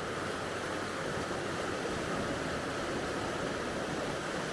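Steady, even rushing noise with no distinct events, such as running water.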